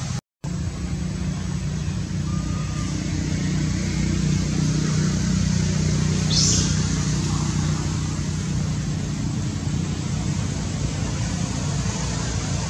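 Steady low rumbling background noise, like distant traffic, cut by a split-second dropout near the start, with one brief high chirp about halfway through.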